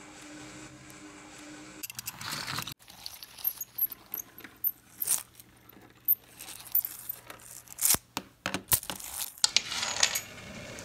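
Scattered light clicks and clinks with short rustles, as of small hard objects being handled, starting about two seconds in after a faint steady hum.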